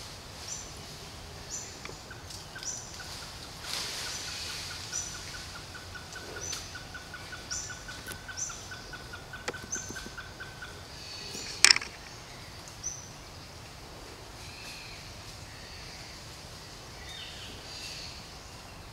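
Forest birds calling: short high chirps repeated about once a second, with a rapid, even pulsing call from about two seconds in until about eleven seconds. A single sharp snap, the loudest sound, comes near the twelve-second mark.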